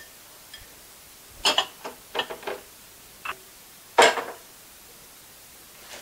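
Metal spoon clinking and scraping against a glass bowl as chopped vegetables are stirred: a run of uneven sharp clinks, the loudest about four seconds in.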